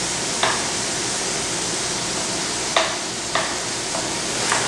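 Crumbled chicken sausage sizzling in a skillet as white wine reduces, with a utensil scraping and clicking against the pan about four times as the sausage is stirred and broken into small bits.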